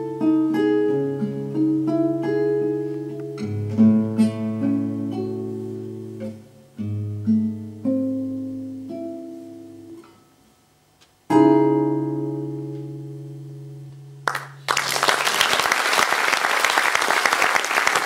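Nylon-string classical guitar plays the slow closing bars of a song, with single notes and chords ringing out. It breaks off briefly about ten seconds in, then a final chord rings and dies away. Audience applause breaks out about fifteen seconds in and carries on.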